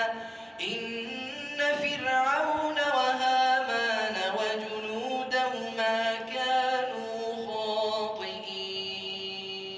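A solo voice chanting Qur'an recitation in a melodic tajweed style, with long held and ornamented notes that glide in pitch. It fades away near the end.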